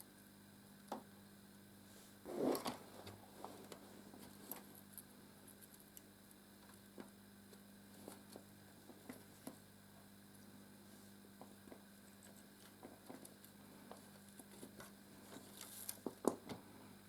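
Faint clicks and rustles of Lego bricks and thin LED light cables being handled as the cables are pulled through a Lego model's chassis, with a louder rustle about two seconds in and a quick cluster of clicks near the end, over a steady low hum.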